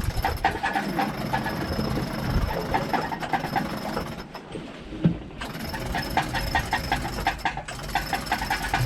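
Sailboat winch being cranked, its pawls clicking rapidly and evenly as it hauls a person up out of the water on a line. The cranking stops briefly about four seconds in, then starts again.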